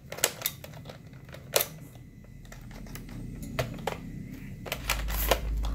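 Nerf Disruptor toy blaster being handled, giving a few irregular sharp plastic clicks. A low rumble builds near the end.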